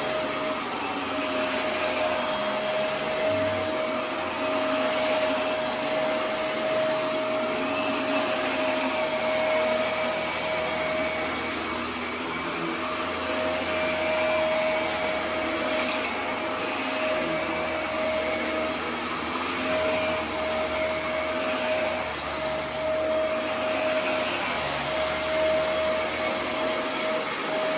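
Dyson DC24 ball upright vacuum running steadily: the motor's rush of air with a steady whine that drops out briefly a few times.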